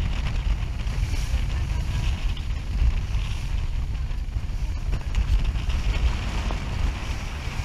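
Wind buffeting the microphone: a heavy, uneven low rumble with no distinct sound above it.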